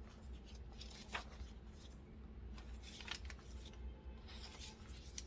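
Paper pages of a handmade junk journal being handled and turned: a few soft rustles and light taps over a low steady hum.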